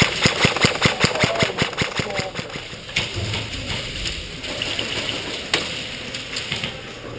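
Airsoft electric gun firing a rapid string of shots, about seven a second, for roughly two seconds, followed by a few scattered single shots.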